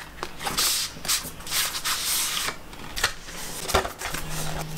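Long white cardboard packaging box being slid open and handled: a run of rubbing, scraping swishes of cardboard on cardboard with a few light clicks.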